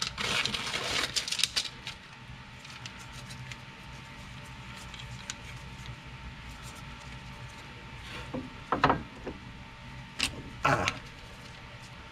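Hand tools and metal parts being handled: a burst of rattling and clinking at the start, then a few short, sharp clanks near the end, over a faint steady hum.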